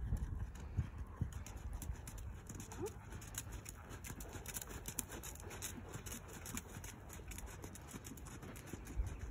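A horse's hoofbeats, faint and irregular, over a low rumble.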